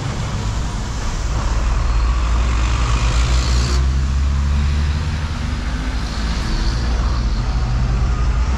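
Heavy diesel trucks driving past close by on a wet road: a steady low engine rumble with the hiss of tyres on wet asphalt, the high hiss easing off about four seconds in.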